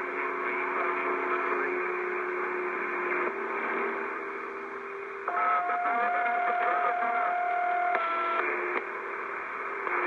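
CB radio receiver speaker hissing with band static, with several steady whistling tones over it that change pitch abruptly a few times. From about five to eight seconds in, a louder, higher whistle comes through.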